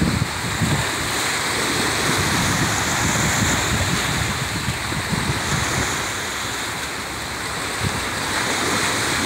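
Wind buffeting the phone's microphone: a steady rushing noise with irregular low gusts.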